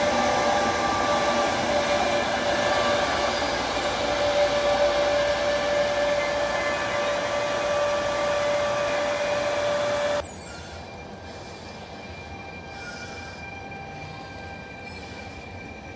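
Electric locomotive of a regional train running at the station: a loud, steady mechanical hum with a held tone. A little after 10 s it drops abruptly to a quieter steady hum.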